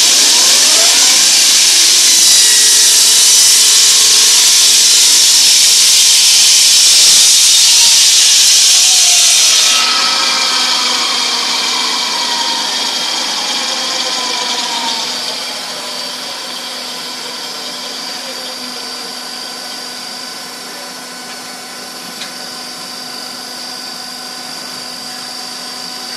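Hydraulic concrete wall saw: its blade spins up with a rising whine under a loud, high hiss and runs for about ten seconds. The hiss then cuts off suddenly and the blade winds down with a falling whine over several seconds, leaving the hydraulic power pack running steadily.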